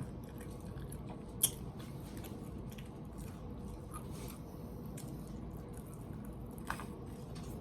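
Faint chewing and mouth sounds of someone eating, with scattered small clicks and one sharper click about a second and a half in.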